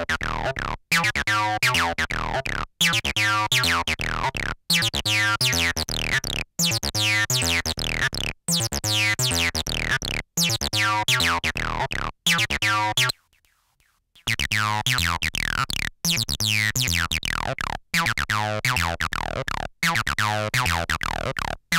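Behringer TD-3 analog bass line synthesizer (a TB-303 clone) playing a looping acid bassline with its built-in distortion switched on. Its resonant filter sweeps down across the notes. The pattern repeats about every two seconds with a brief break, stops for about a second midway, then starts again.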